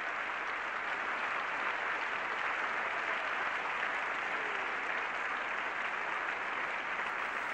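Tennis crowd applauding steadily after the match-winning point.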